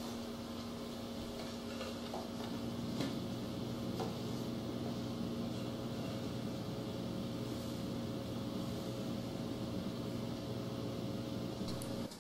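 Steady electrical appliance hum with a constant low tone, with a couple of faint taps about three and four seconds in.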